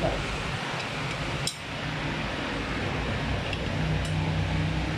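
Steady hiss with a low hum, with a few faint metallic clinks, the first about one and a half seconds in.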